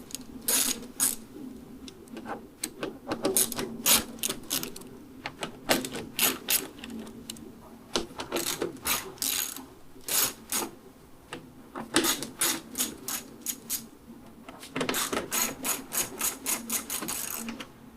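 Hand ratchet with a Torx bit clicking in repeated bursts as it backs out the windshield screws from a motorcycle fairing, turned by hand rather than with a power tool.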